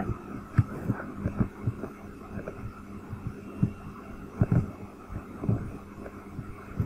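Scattered soft thumps and clicks, about eight or nine at uneven intervals, over a steady low electrical hum.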